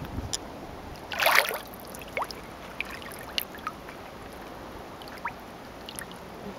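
Dead Sea water lapping and trickling, with scattered small drips and clicks and one louder splash about a second in.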